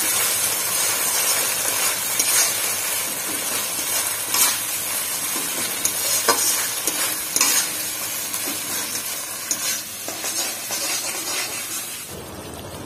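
Ground onion-garlic masala paste sizzling as it fries in hot mustard oil in a metal kadai, a metal spatula stirring it and scraping the pan every second or two. The hiss dies down near the end.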